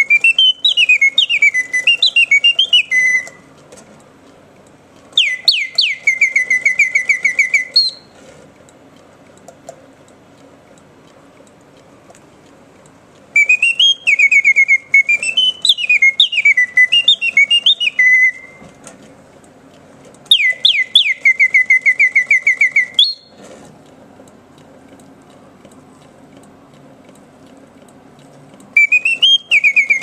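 Swiss mechanical singing-bird cage, its bellows-driven whistle sounding bird song: phrases of rising and falling whistled glides and fast runs of repeated notes that settle into a trill, five phrases with pauses of a few seconds between them, and a faint hum under the pauses.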